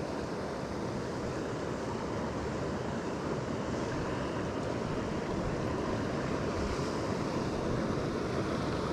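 Steady rushing of a shallow rocky river as it flows over rocks and riffles.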